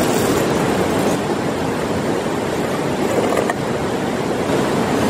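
A rocky river rushing steadily over stones, with a few faint clicks of camp gear being handled.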